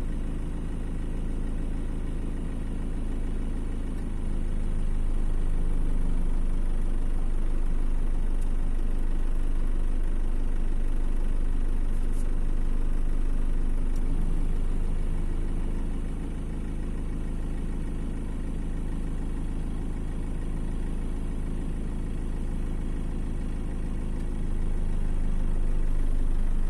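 An engine idling steadily as a low hum. It grows louder about four seconds in, eases back around sixteen seconds, and rises again near the end.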